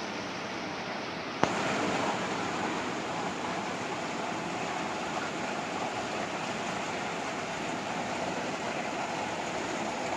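Steady rush of water and running equipment in a recirculating aquaculture fish-tank system. About a second and a half in there is a sharp click, and the noise becomes louder and brighter.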